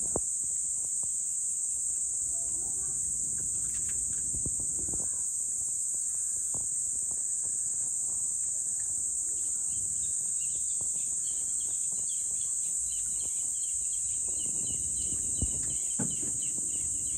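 Evening insect chorus, a steady high-pitched drone. About halfway through, a quick series of short repeated chirps joins in over it.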